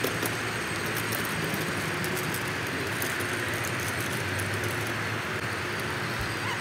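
Child's battery-powered ride-on scooter moving along an asphalt path: a steady rolling noise from its wheels on the pavement over a low motor hum, with faint ticks and crackles.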